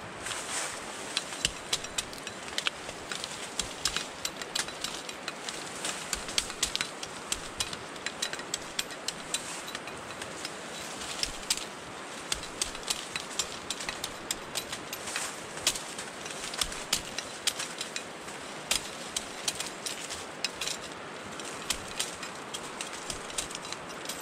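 Machete cutting through bamboo stems and brush, with dry fallen bamboo leaves and twigs crunching and snapping underfoot: many sharp, irregular cracks and snaps, several a second, over a steady rushing noise.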